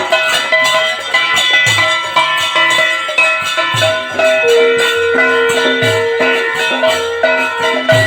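Background music with a steady beat of percussion and bright melodic notes.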